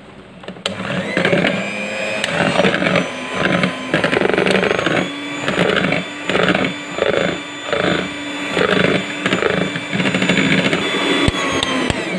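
Electric hand mixer running with twin wire beaters, whipping egg whites with powdered sugar into a glaze. The motor speeds up about a second in, hums steadily with a pulsing about twice a second, and winds down at the very end.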